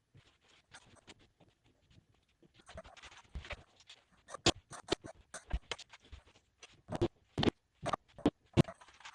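A series of irregular knocks and clicks, sparse at first and louder and closer together from about halfway, the loudest around two thirds of the way through.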